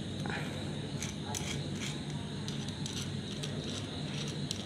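Faint, irregular metallic clicks and light scrapes as a screwdriver's steel shaft and extension bar are fitted together and handled, over a steady low hum.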